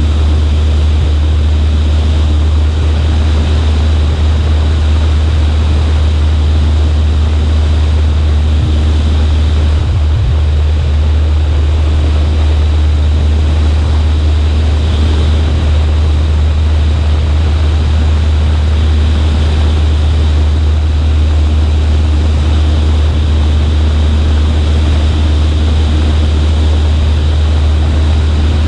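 Cessna 140A's engine and propeller in flight, a loud, unchanging drone with a strong low hum and a hiss of airflow over it.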